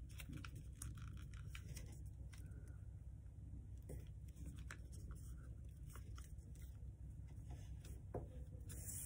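A sheet of paper being folded and creased by hand: scattered soft crinkles and scratchy clicks as fingers press and run along the fold, over a steady low hum.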